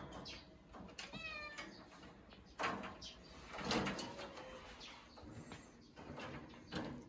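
A kitten gives one short, high meow about a second in, amid knocks and rattles of a wire cage as the kittens scramble and climb the bars after a teaser toy; the loudest knock comes near the middle.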